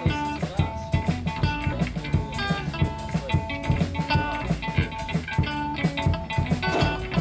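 Background music: guitar-led rock with bass and a drum kit keeping a steady beat.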